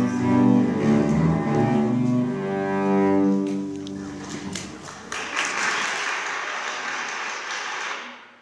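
Two cellos playing a duet that ends about three and a half seconds in, the bows lifting off. About a second later applause starts, runs for about three seconds and cuts off suddenly.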